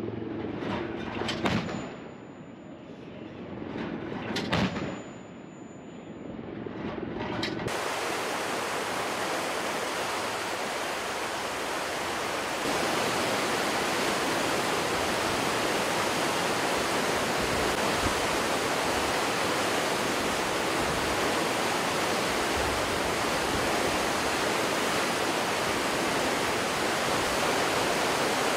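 A naval deck gun firing twice, about three seconds apart, each shot a heavy boom. From about 8 s in, steady rushing wind and sea noise of warships under way.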